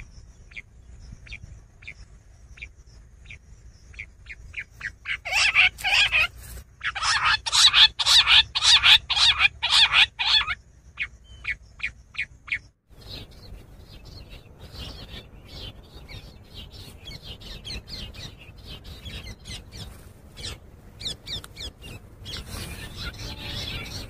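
Quail calling: a run of short, sharp repeated notes starts faint and spaced, quickens and grows loud about five seconds in, then thins out again. After a brief break, a fainter scatter of chirping notes follows over a low rumble.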